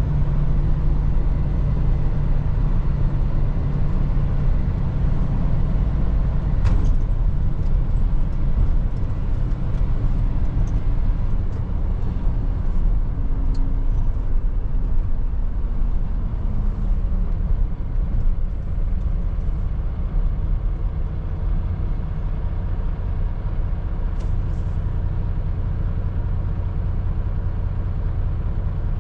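Mercedes-Benz Atego truck's diesel engine running with road noise, heard from inside the cab while driving. There is a sharp click about seven seconds in, and the engine note falls in pitch midway as the truck eases off.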